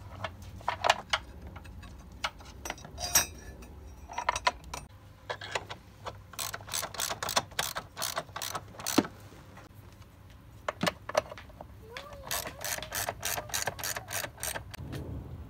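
Socket ratchet clicking as the bolts of a car battery's hold-down clamp are tightened. The clicks come a few a second in short runs, with two longer runs midway and near the end.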